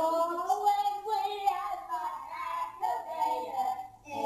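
Singing in a high voice, a melody with long held notes, briefly dropping away near the end.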